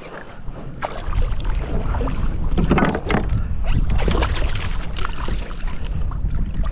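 Sea water sloshing and splashing against a kayak's hull in irregular bursts, over a steady low rumble.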